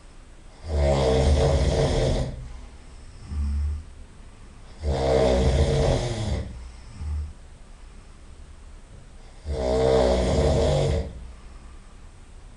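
A person snoring loudly: three long snores about four seconds apart, each lasting around a second and a half. A short, quieter low sound falls between them.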